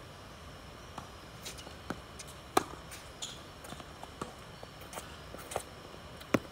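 Tennis ball strikes and bounces during a hard-court rally: a string of sharp pops at irregular spacing, loudest about two and a half seconds in and again near the end.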